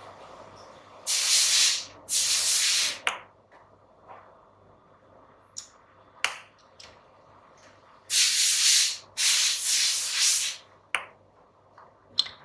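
Four short bursts of hissing air, each about a second long, in two pairs, with a few sharp clicks in between.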